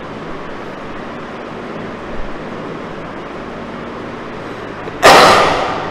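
Steady hiss and low hum of room background noise. About five seconds in comes a sudden loud rush of noise that fades away over about a second.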